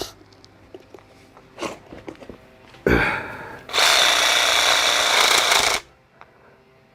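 A handheld power tool trims the adapter bracket for a door closer, running steadily for about two seconds and then stopping abruptly. A sharp knock comes about a second before it starts.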